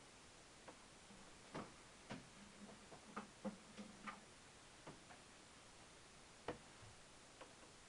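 Faint, irregular small clicks and taps while an orchid's glass vase of LECA clay pebbles is watered and the watering can is handled. They are thickest in the first half, with one louder tap about six and a half seconds in.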